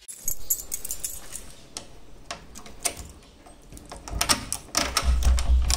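A bunch of keys jangling as it is picked up, then metallic clicks of a key working an old rim lock on a door, with a low thud near the end.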